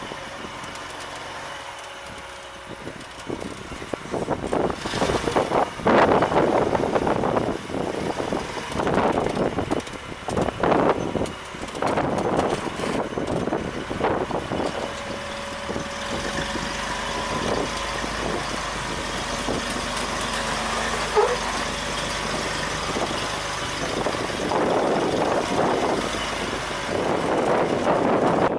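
Off-road vehicle engine running as it crawls over rock, with uneven surges of noise in the first half and a steadier low rumble in the second half.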